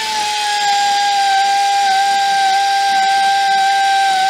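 Pneumatic air ratchet running at speed, a steady high whine with air hiss, held throughout.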